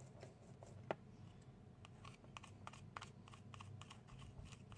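Faint, irregular small clicks and scratches of a blender's speed-selector switch contacts being handled and scraped clean, one click a little louder about a second in, over a low hum.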